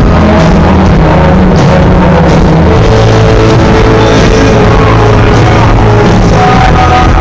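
Live rock band playing loudly: electric guitars, drums and keyboards together, recorded from the audience on a phone at a level pinned near its maximum.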